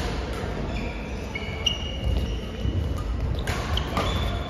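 Badminton play: a few sharp racket hits on the shuttlecock and short squeaks of shoes on the court floor, over the low background noise of a sports hall.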